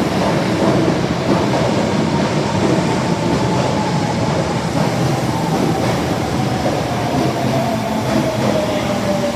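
Osaka Metro 22 series subway train running into the station: steady rumble of the wheels on the rails, with a whine that falls slowly in pitch as the train slows.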